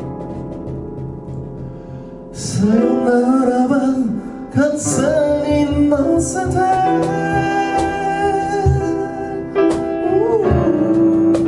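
A man singing while accompanying himself on a grand piano. Piano chords ring alone at first, and the voice comes in about two seconds in, holding long notes over the chords.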